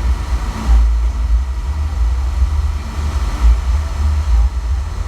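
Deep, loud bass from a large outdoor cinema sound system during a sound check, swelling unevenly with little above it and overloading the recording.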